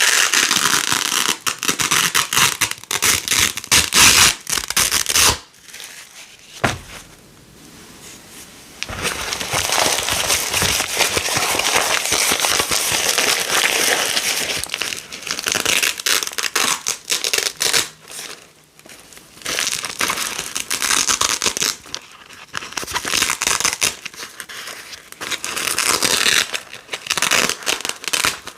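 Small pieces of Velcro hook-and-loop fastener being pulled apart again and again, giving a dense crackling rip. It eases off for a few seconds about six seconds in and briefly again near eighteen seconds.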